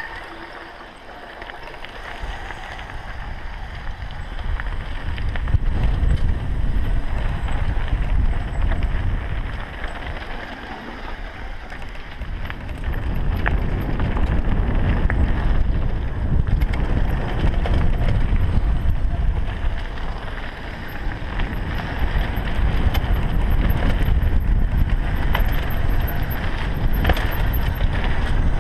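Wind buffeting a helmet-mounted camera's microphone and knobby mountain-bike tyres rolling over a dirt trail at downhill speed, with scattered knocks and rattles from the bike over bumps. The rush swells and dips, quieter in the first few seconds and briefly around a third and two thirds of the way in.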